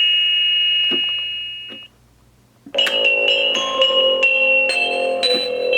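Electronic spooky music from the Gemmy animated eyeball doorbell's small speaker, in bell-like keyboard tones: a held chord fades out, then after a short gap a new run of chiming notes begins just under three seconds in.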